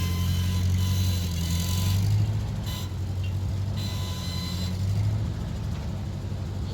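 Tractor front-end loader's engine running steadily, with a higher whine that comes and goes. The engine is louder over the first couple of seconds and again about five seconds in.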